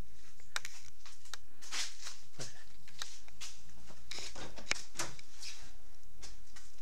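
Scattered clicks, taps and short rustles of hands and tools handling a car door's interior trim, with a brief falling swish about two and a half seconds in.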